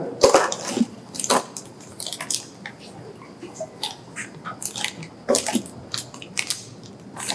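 Plastic bags and paper wrapping crinkling and rustling as they are handled and pulled out of a cardboard box, in irregular crackles with a few louder crunches.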